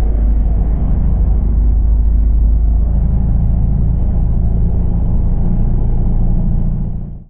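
Race car engine and drivetrain rumbling steadily inside the stripped cockpit while the car runs on track, fading out quickly near the end.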